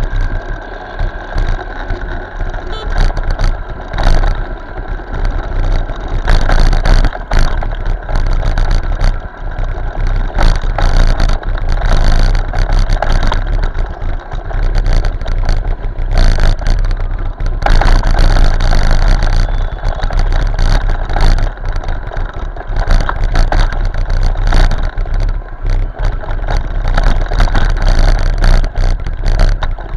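Motorcycle riding in traffic, heard through an action camera's built-in microphone: a steady rumble of wind and engine with frequent gusts of wind buffeting the mic.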